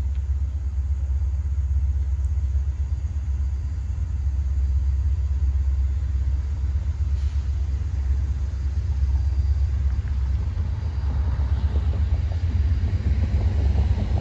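Diesel locomotives of an approaching train: a steady low rumble, with engine and wheel noise growing louder from about ten seconds in as the train draws closer.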